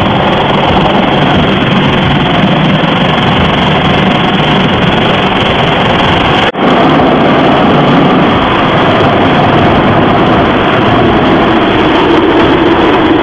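Automatic car wash running over a car, heard from inside the cabin: rotating brushes scrubbing and water jets spraying the bodywork as one loud, steady wash of noise, cut out for an instant about halfway through.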